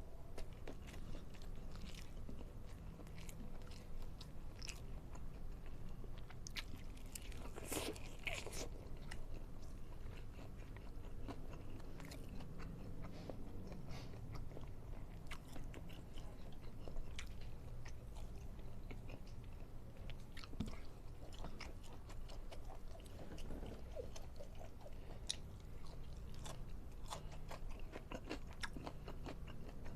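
Close-miked eating: chewing and biting food, with frequent short crunches and wet clicks throughout and a denser run of crunching about eight seconds in.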